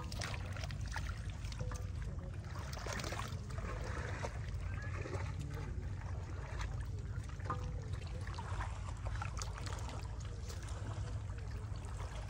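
Water sloshing and trickling, with scattered small clicks and rustles, as water chestnuts are picked by hand from floating vines in waist-deep water, over a steady low rumble.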